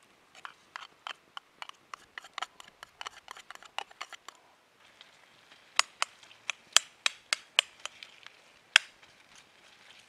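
Light metal taps and scrapes as food is emptied out of a tin can into a frying pan, about three to four taps a second. About six seconds in come sharper, louder clinks of a metal spoon against a stainless steel frying pan as pasta is stirred.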